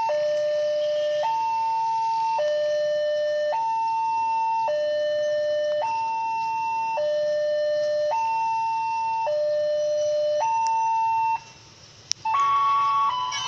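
Railway level-crossing warning alarm sounding a steady high–low two-tone signal, each tone held about a second. It stops near the end, and a short electronic chime follows that leads into the crossing's recorded safety announcement.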